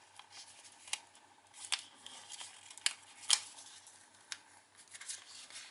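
A sheet of origami paper being creased and pressed into a box shape by hand: soft rustling and crinkling of the paper, broken by a handful of sharp crackles.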